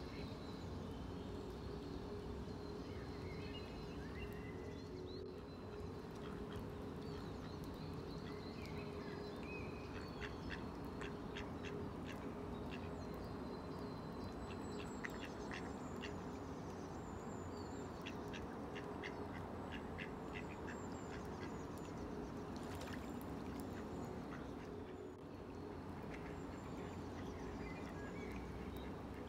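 Mallard ducks quacking, with runs of quick, short quacks through the middle, over a steady low background hum.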